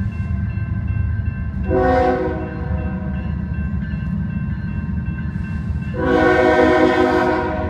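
Approaching diesel locomotive's air horn sounding two blasts, a short one about two seconds in and a longer one near the end, over a steady low rumble. The grade-crossing's electronic bells keep ringing underneath.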